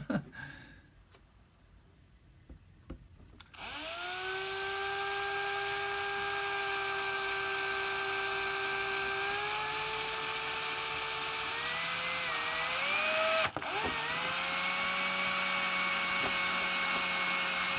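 Small electric drill starting up after a few seconds of quiet and running steadily as it bores a hole in a plastic RC car body shell. About two-thirds of the way through its pitch sags under load; it stops for a moment and spins up again.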